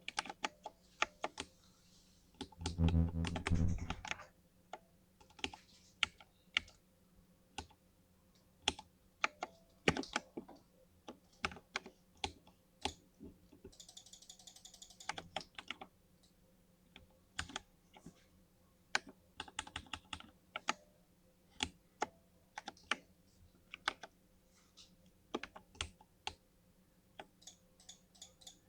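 Keys of an RGB LED computer keyboard being typed on: irregular sharp key clicks throughout. About three seconds in there is a louder, denser low burst lasting about a second and a half, and around the middle a brief high buzzing rattle.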